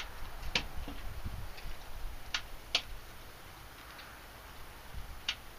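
A few sharp, irregular clicks at the battery charger's controls, with no starter cranking and no engine sound. The charger is unplugged, so the Kohler Courage engine does not turn over.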